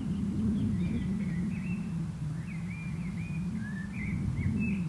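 Low, steady rumble of a distant Hunslet 0-4-0T narrow-gauge steam tank engine working towards the listener, with songbirds chirping and trilling over it.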